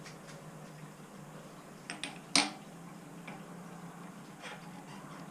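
A few light metal clicks and one sharp clink about two and a half seconds in, as small steel parts are handled and set on a milling machine's rotary table, over a low steady hum.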